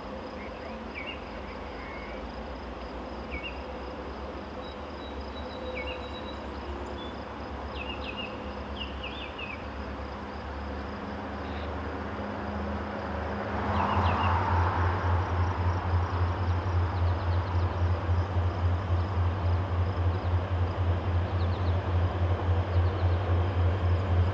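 An approaching freight train's two EMD SD40-2 diesel locomotives, their two-stroke V16 engines a low drone that grows louder, with birds chirping and insects buzzing over it. About fourteen seconds in, the engines throttle up, sending up exhaust smoke, and the sound jumps to a loud, low, pulsing beat that keeps building as the locomotives near.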